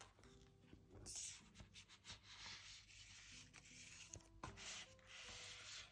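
Faint rubbing and sliding of paper and cardboard as album contents are pushed back into their packaging, with a few small clicks.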